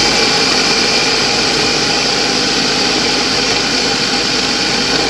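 Ninja Pro System 1100 food processor running steadily on its blend setting, its blades chopping a full bowl of onion and fresh green spices into a coarse paste.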